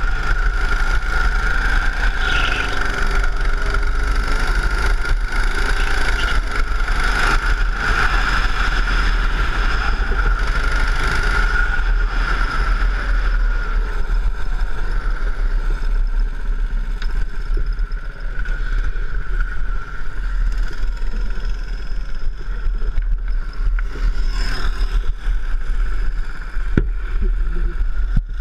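Go-kart engine running at racing speed, heard onboard with wind rumbling on the microphone; the engine note holds steady through the first half, then eases off.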